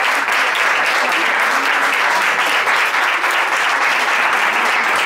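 A small audience applauding steadily, with dense, continuous clapping.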